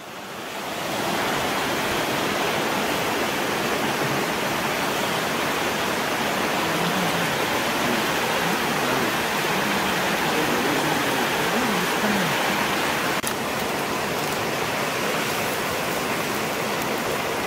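Steady rushing of a shallow stream running over rock, fading in over the first second.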